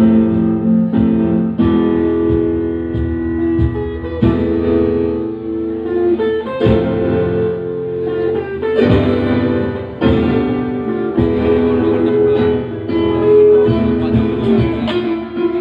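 A live band plays an instrumental piece: an electric guitar carries the melody over keyboards, with hand-drum strokes keeping the beat.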